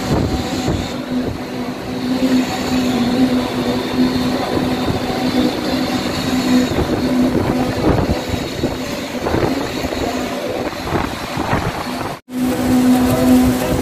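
Construction machinery running steadily with a constant-pitch hum and rough mechanical noise, at a fresh concrete pour. The sound drops out for an instant near the end.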